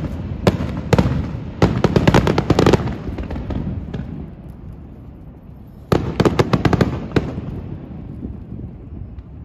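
Fireworks display: a rapid run of bangs and crackles for the first three seconds that dies away into a low rumble, then a second cluster of bangs about six seconds in that fades out the same way.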